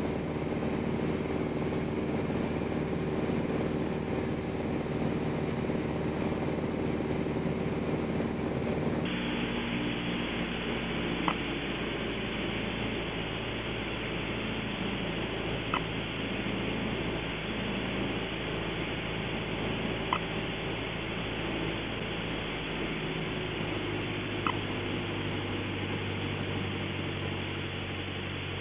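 Piper PA-28-180 Cherokee's four-cylinder Lycoming O-360 engine and propeller droning steadily in the cabin on final approach to landing. About nine seconds in the sound turns duller, and a faint click comes about every four seconds.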